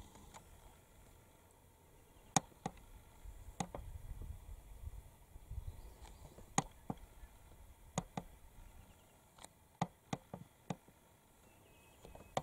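A dozen or so sharp, dry clicks and snaps at irregular intervals, some in quick pairs, over a faint low rumble.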